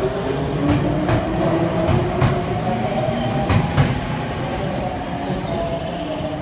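Nankai 2000 series electric train pulling out and gathering speed, its GTO-VVVF inverter traction motors whining in slowly rising tones over a low rumble, with repeated sharp clacks as the wheels pass over rail joints. The sound eases off over the last couple of seconds as the train draws away.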